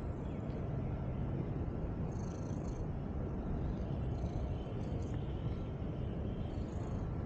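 Domestic cat purring: a steady low rumble.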